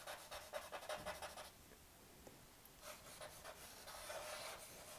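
Charcoal stick scratching faintly on drawing paper in short strokes, with a brief pause in the middle.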